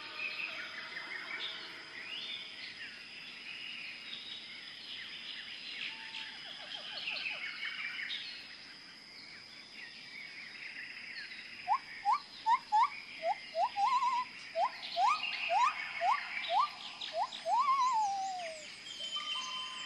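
Birds chirping outdoors, with a steady high whine underneath. In the second half a loud series of quick rising whistled notes, about two a second, ends in one longer falling note.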